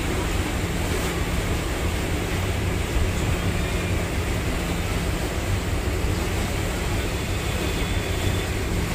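A motor yacht's engine drones steadily under way, with a constant rush of wind and water passing the hull.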